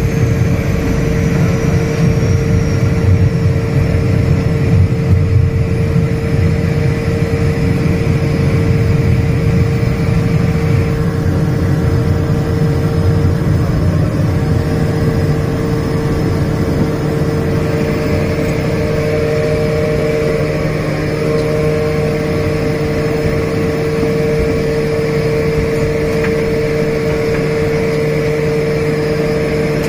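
Twin turboprop engines of a small commuter plane running steadily, heard from inside the cockpit: a constant propeller drone with one steady humming tone over it, easing a little in loudness about halfway through.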